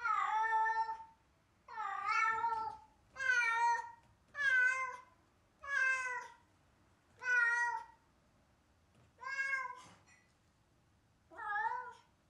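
Domestic cat meowing over and over, eight drawn-out calls about one and a half seconds apart, the gaps growing a little longer near the end. This is the crying of a cat left alone, which its owners fear may be separation anxiety.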